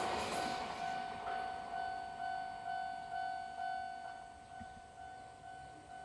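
Railway level-crossing warning bell ringing steadily at about two strikes a second, each strike a ringing tone that decays, while the rumble of a departing train fades away in the first second.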